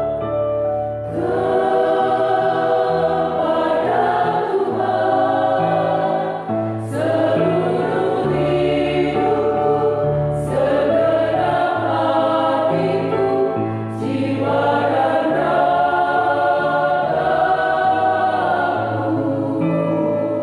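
A women's choir singing in sustained phrases, with short breaks between phrases every few seconds.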